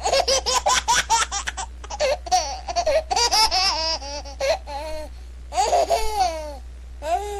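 High-pitched laughter: a quick run of short bursts at first, then longer squealing laughs that rise and fall, over a steady low hum.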